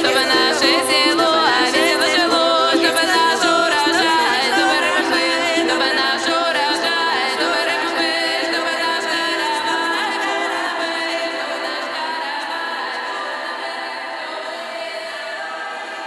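Music with singing voices, the voices wavering over held notes in the first half; the whole track then fades out gradually.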